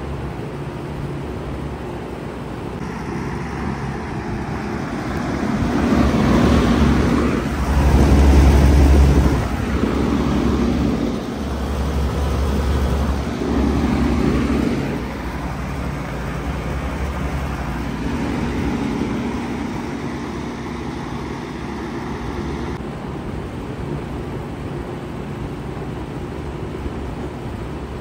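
2013 Bard 3.5-ton wall-hung heat pump running steadily in cooling mode: a low compressor hum under the rush of the condenser fan. The sound grows louder for several seconds partway through as the microphone is brought up to the grille, then settles back.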